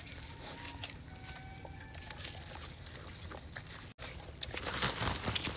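Pigs eating apples, with scattered wet chewing and crunching; about four seconds in the crunching turns denser and louder.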